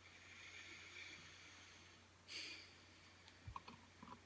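Near silence: a faint hiss and a brief rustle, then a soft thump and a few light clicks in the second half.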